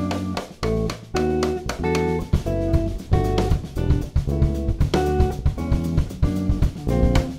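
Jazz trio of guitar, bass and drum kit playing, with guitar notes over bass and the drum kit played with sticks.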